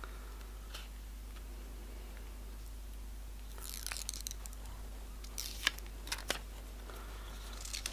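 Thin protective plastic film being peeled off the back of a new smartphone: faint crinkling and crackling, a short run about three and a half seconds in and a few sharp ticks around five and a half to six seconds.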